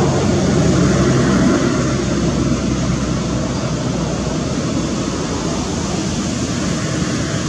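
Road traffic: a vehicle's engine humming close by for the first two to three seconds, then easing into a steady rush of noise.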